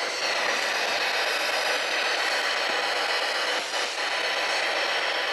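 Spirit box sweeping through radio frequencies: a steady hiss of radio static, briefly dipping about two-thirds of the way through.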